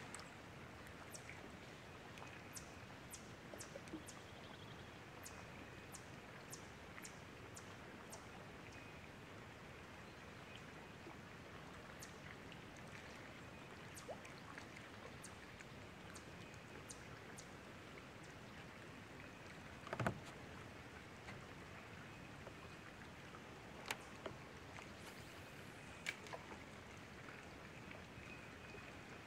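Quiet ambience around an idle fishing boat: a faint steady hiss with scattered light ticks, and one louder knock about twenty seconds in.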